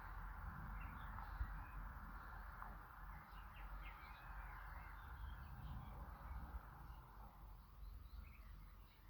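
Faint outdoor ambience: birds chirping in short, scattered calls from about three seconds in, over a steady low rumble and hiss.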